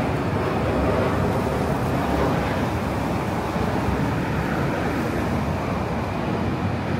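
Steady traffic noise from passing road vehicles, easing off slightly towards the end.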